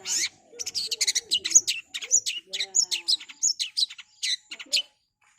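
Long-tailed shrike (cendet) singing a fast run of short, harsh chirps and squeaky notes, about five a second, stopping shortly before the end.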